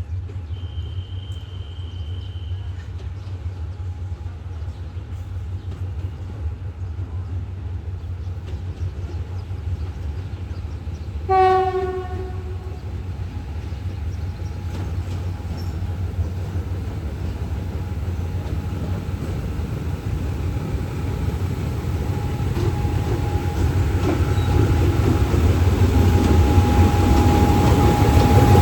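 Diesel train rumbling at the station, growing louder toward the end, with one short horn blast about eleven seconds in. A brief high whistle sounds near the start.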